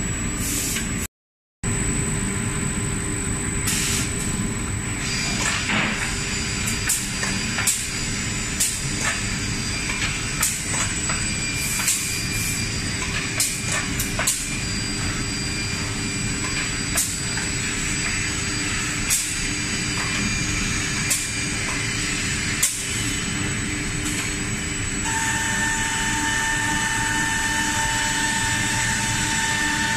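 Leabon SG612J six-sided CNC drilling and milling machine working a furniture panel: a steady mechanical running with a constant whine, broken by a string of short sharp clicks about one or two a second. Near the end a new steady higher tone comes in.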